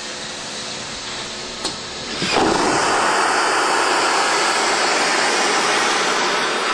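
Airbus A380 vacuum toilet waste system flushing: a steady hiss, a click at about one and a half seconds, then from about two seconds in a loud rush of air sucked into the evacuated pipes that lasts about four seconds and stops abruptly.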